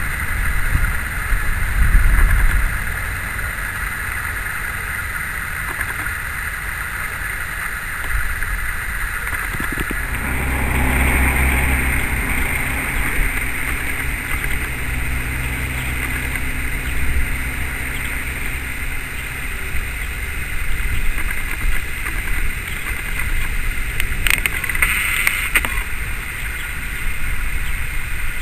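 SM30 diesel shunting locomotive's engine running at a steady speed, its low note loudest through the middle.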